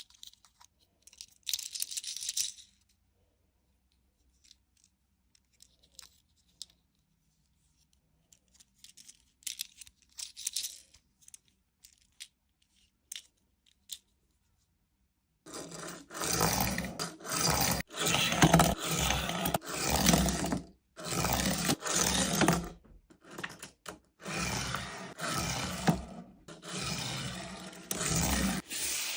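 Toy packaging being handled and torn open: scattered small clicks and rustles at first, then, about halfway through, a long run of loud crinkling and tearing, burst after burst.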